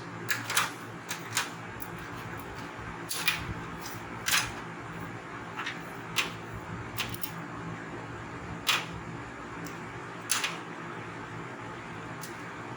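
Scattered sharp clicks and small knocks, about a dozen at irregular intervals, from handling and prying out the TV's old LED backlight strips, over a steady low hum.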